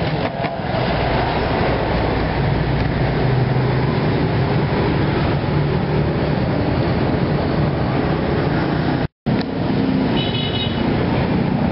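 Steady street traffic noise from vehicles running past, an even rumble with no break except a brief dropout about nine seconds in.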